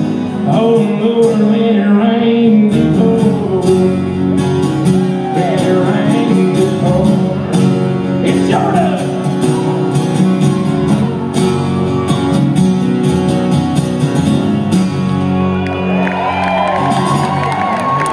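Acoustic guitars strumming under a male voice singing a country song, played live in a large hall, with shouts from the audience. About sixteen seconds in, the crowd's cheering and hollering rises over the final chords as the song ends.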